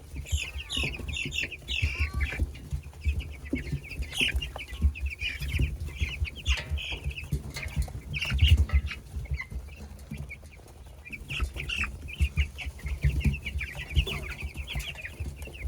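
A flock of about fifty 16-day-old Cornish Cross broiler chicks, peeping constantly with many rapid high chirps. Underneath are irregular low thumps and rumbling, loudest a little past halfway.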